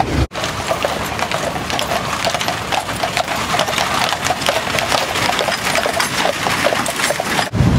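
Hooves of a pair of grey draught horses clip-clopping on the road as they pull a wooden horse tram, with the tram's wooden body rattling and knocking.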